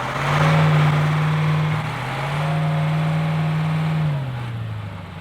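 Willys jeep engine revving hard under acceleration. Its pitch climbs, dips briefly at a gear change about two seconds in, climbs and holds again, then drops off near the end.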